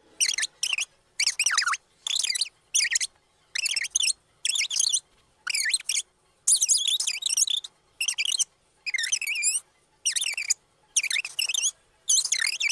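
High-pitched Minnie Mouse–style voice played back at double speed: short, squeaky, chipmunk-like bursts of sped-up speech, separated by short silences.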